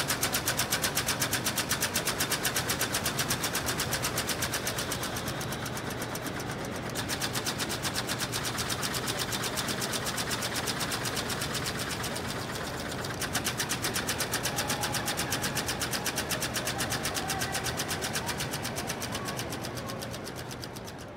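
Solari split-flap departure board clattering as its flaps flip over to change the train listings: a rapid, even run of clicks in three long bursts, starting at once, about 7 seconds in and about 13 seconds in, and fading out near the end.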